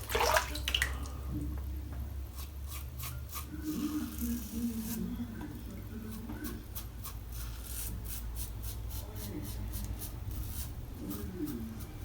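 Safety razor with a brass Karve Christopher Bradley head and a Supermax Blue Diamond blade scraping through lathered stubble in short strokes, each one a crackling rasp, with a louder stroke near the start.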